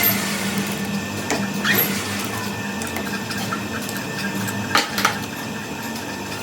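Workshop machine running steadily with a hum, with a few short metallic clicks and taps over it, two of them close together near the end.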